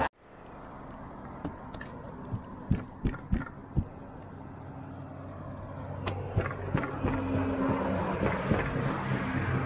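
Thin dough handled on a floured wooden table: a run of short soft slaps and knocks in two clusters, over a steady low engine hum in the background.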